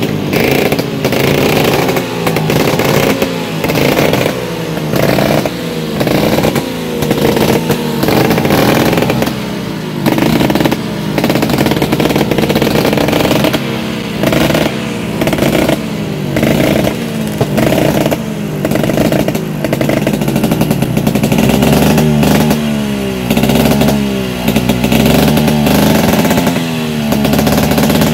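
Classic two-stroke Vespa scooter engine being revved hard in repeated quick throttle blips, its pitch dropping back after each one. This is a loud engine test before a ride.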